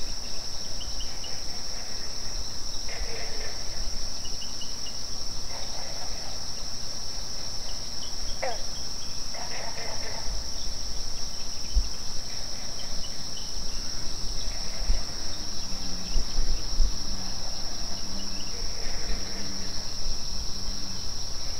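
A chorus of night insects, most likely crickets, keeping up a continuous high-pitched trill without a break. A few faint, brief sounds come and go beneath it.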